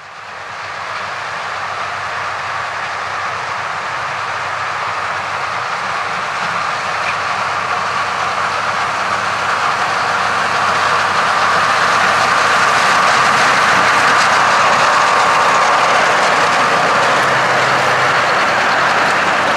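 Ford tractor's diesel engine running under load with its rotary drum mowers spinning through grass, a steady mechanical noise that grows gradually louder as the tractor and mowers pass close.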